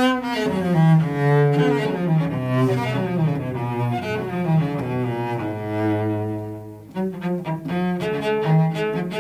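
Solo cello played with the bow: a flowing melody of connected notes that settles on a long held low note, then, after a brief dip about seven seconds in, continues in quicker, shorter bow strokes.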